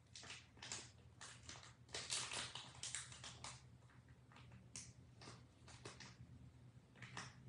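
Faint, irregular rustling and clicking, densest from about two to three and a half seconds in, over a low steady hum.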